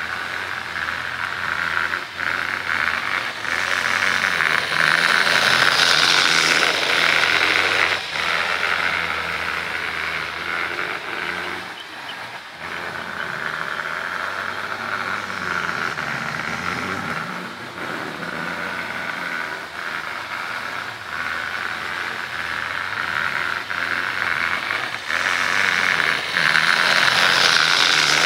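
Bachmann HO scale model diesel freight train running on its track: the hum of the locomotive's small electric motor and the clicking rattle of wheels over the rails. It gets louder about five seconds in and again near the end as the cars pass close by.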